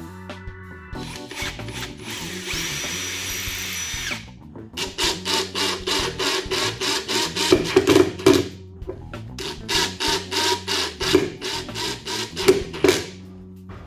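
A power drill runs for about three seconds, with a high whine, followed by a fast, even series of short strokes, about three a second, over background music.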